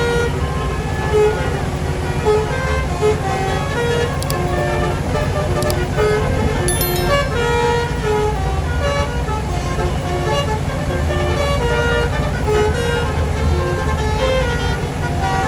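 Bus telolet horn (klakson basuri) playing a continuous melody of short, changing notes over the steady low rumble of a bus engine.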